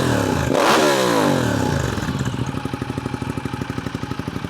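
Ducati Diavel's 1198 Testastretta L-twin engine blipped once about half a second in. The revs fall back over a second or so and it settles into a steady, lumpy idle.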